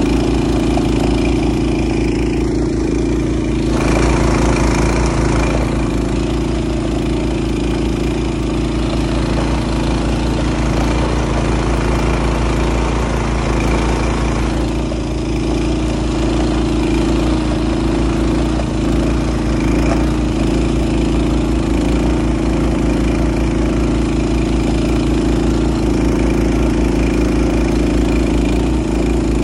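Honda snowblower's engine running steadily under load while its auger and impeller throw snow out of the chute. The rush of blown snow grows louder about four seconds in.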